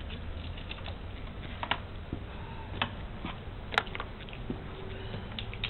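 Scattered light clicks and knocks from stage equipment and cables being handled, the sharpest about two-thirds of the way through, over a steady low rumble.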